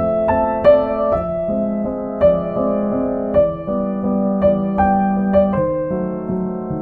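Background music: a gentle piano piece with single notes and chords struck every half second or so over sustained lower notes.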